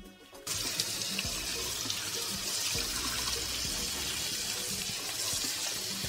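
Kitchen tap running onto raw prawns in a plastic colander as they are rinsed by hand, a steady splashing hiss that starts about half a second in.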